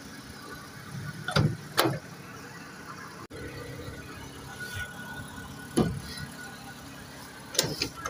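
A few sharp metallic clanks from a floor jack and the hand tools lying on it (a sledgehammer, a mallet and a socket set): two about a second in, one near six seconds and a quick pair near the end, over a steady low hum.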